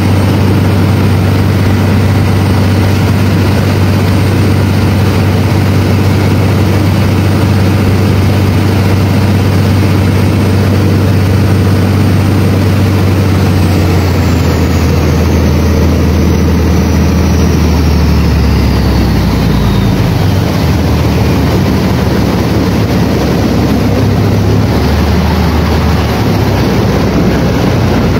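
Passenger speedboat's motor running loud and steady with a deep drone, under the rush of water and wind along the hull. About halfway through, a high whine slides down in pitch and the deep drone shifts.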